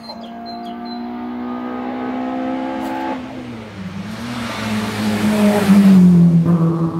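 Hill-climb race car, a hatchback, climbing toward the listener at high revs, its engine note dipping briefly about three seconds in. The engine then rises again and the car passes close about six seconds in, its note dropping in pitch as it goes by.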